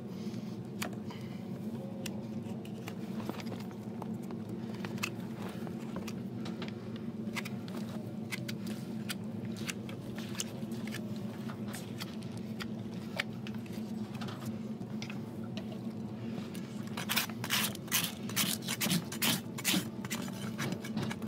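Farrier's hoof knife paring and scraping the sole of a large feathered draft horse's hoof: scattered light scrapes and clicks. Near the end comes a quick run of a dozen or so loud rasp strokes across the hoof. A steady low hum lies underneath throughout.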